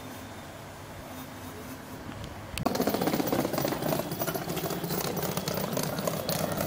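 Class 317 electric multiple unit running past along the platform: a steady lower rumble, then about two and a half seconds in a sudden loud, rapid clattering that keeps going.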